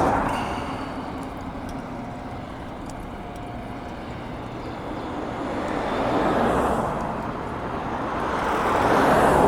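Road traffic: cars passing one after another, their tyre and engine noise swelling and fading. One passes about six and a half seconds in, and another builds up near the end.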